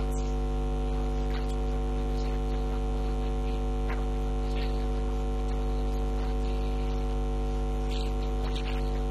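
Steady electrical mains hum, a low buzz with many overtones, holding at an even level throughout.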